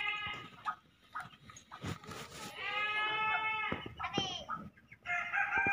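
Farm animals calling with long, drawn-out cries about a second each: one at the start, one about three seconds in that falls away at its end, and another near the end, with a short high squawk between.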